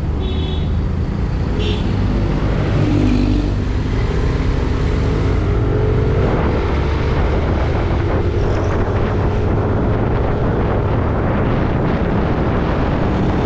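Motorcycle running steadily while riding along a road, its engine mixed with wind and road noise.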